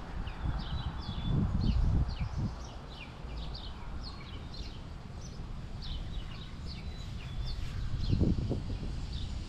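Small birds chirping: a run of short, quick downward-sliding chirps, several a second, over a low, gusty rumble that swells about two seconds in and again near the end.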